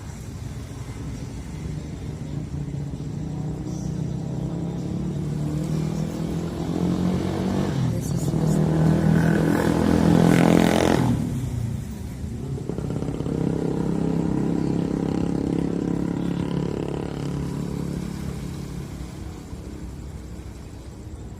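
A motor vehicle's engine passing close by, growing louder to a peak about ten seconds in and dropping sharply in pitch as it goes past, followed by a second, softer vehicle passing and fading away.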